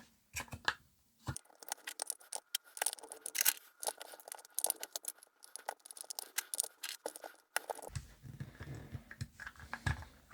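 AA batteries being fitted into a handheld CB radio's battery compartment: a run of small, irregular clicks, taps and rattles of the cells against the plastic holder and contacts, followed by softer handling rumble near the end.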